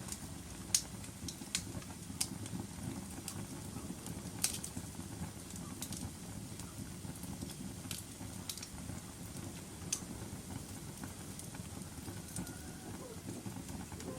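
Wood fire burning in a fireplace: a steady low rumble of flames with irregular sharp crackles and pops every second or so, the loudest about a second in and about four and a half seconds in.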